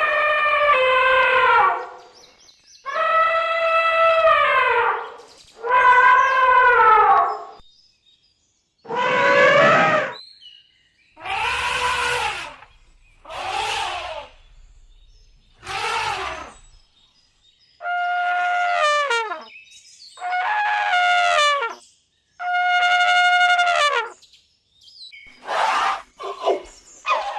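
African savanna elephant trumpeting: a series of about a dozen separate calls, each a second or two long with short gaps between. The calls in the middle are rougher and noisier, and several shorter blasts come close together near the end.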